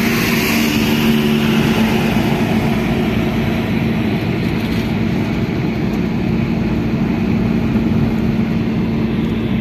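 Steady road noise inside a moving car's cabin: a constant engine hum with tyre and wind noise.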